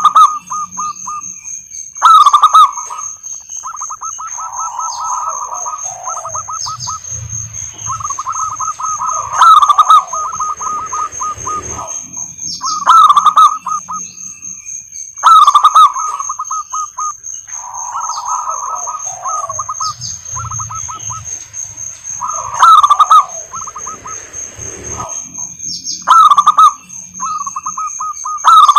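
Zebra doves (perkutut) singing: rapid, stuttering cooing trills, repeated phrase after phrase, each opening with a loud accented note. A steady high-pitched whine runs underneath.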